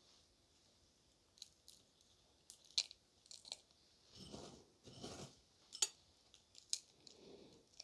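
Faint, soft crunching of crushed biscuit crumbs being pushed and pressed, with a few sharp clicks of small plastic toy diggers being set down.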